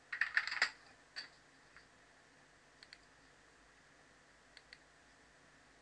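Computer keyboard keystrokes in a quick burst of about half a dozen, then a few single clicks and two quick double clicks further on.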